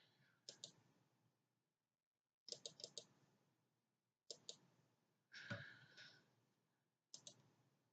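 Faint computer mouse clicks in small groups: a pair, a quick run of four, then two more pairs. A brief soft noise comes a little past the middle.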